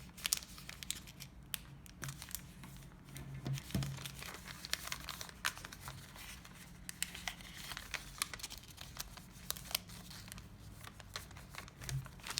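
Origami paper being creased and folded by hand: irregular small crinkles, crackles and snaps as the paper is pressed, reversed and flattened.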